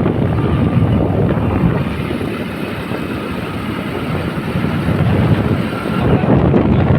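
Wind rushing over the microphone on a moving motorcycle, mixed with engine and road noise, easing a little midway and rising again near the end.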